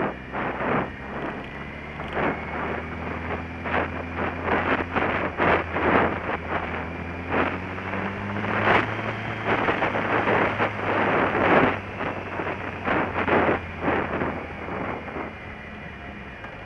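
Riding on a motorcycle: wind buffeting the microphone in irregular gusts over the steady hum of the engine. The engine note rises a little about halfway through and fades out just before the end.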